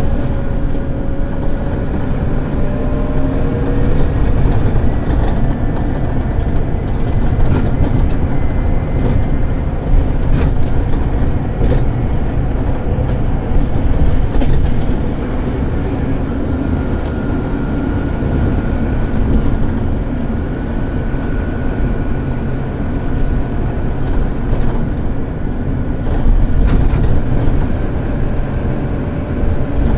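Scania DC9 five-cylinder diesel of a Scania K280UD double-decker bus running hard under load, heard from inside the upper deck, a steady heavy drone with scattered clicks and rattles. A thin higher whine comes in about halfway through.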